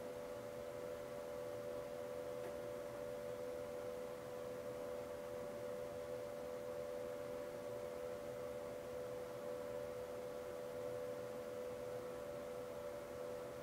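Steady electrical or mechanical hum made of two close tones with fainter higher ones above, unchanging throughout.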